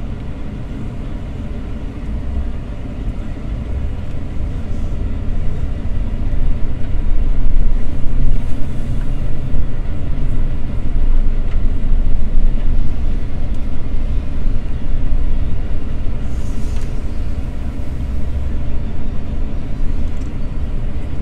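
Car heard from inside the cabin while driving slowly: a steady low rumble of engine and road noise.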